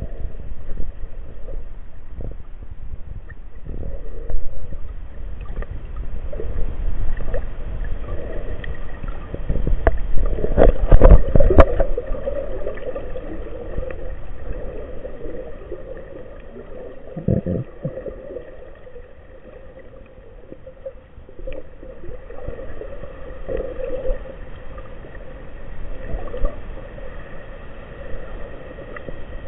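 Underwater ambience picked up by a camera below the surface: a steady low rumble of moving water, with scattered clicks and knocks. The knocks are loudest in a cluster about ten to twelve seconds in.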